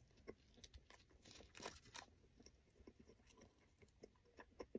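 Faint, irregular crunching and chewing of a soft walnut-filled bun in the mouth, with small crackles scattered throughout.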